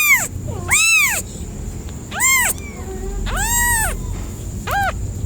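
Kitten meowing repeatedly in high-pitched calls rising and falling in pitch, about five in all, the longest about three and a half seconds in; a kitten calling for its mother.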